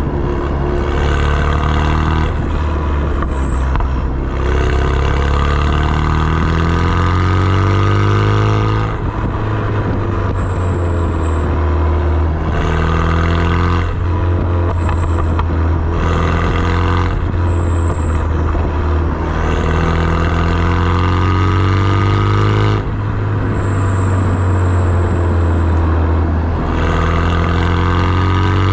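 Renault Mégane RS 250's turbocharged four-cylinder engine, fitted with a downpipe and with the mid silencer deleted, accelerating through the gears: its note climbs, then breaks off and drops at each gear change, several times over. A few brief high-pitched whistles come and go in between.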